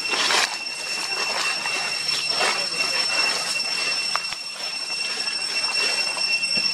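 Steady high-pitched insect drone, with a few short scuffles or rustles over it, the strongest right at the start.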